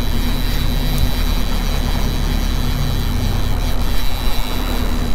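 A boat's engine running steadily under a broad rush of wind and water.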